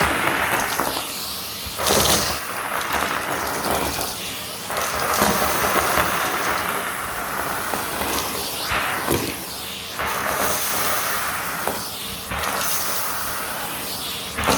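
Vacuum cleaner running, its steady rush of suction swelling and dipping every second or two with sudden changes.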